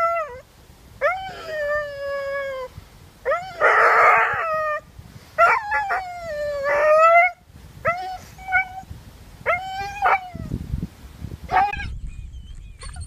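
A dog howling and yelping over and over, in long cries that rise and then slide down in pitch, with a harsher, rasping call about four seconds in. A low rumble comes in near the end.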